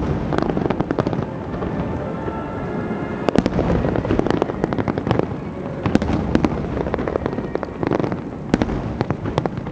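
Aerial fireworks display: many shells bursting in quick succession, a dense run of sharp cracks over a constant low rumble. Heavier clusters of reports come about a third of the way in, around the middle, and near the end.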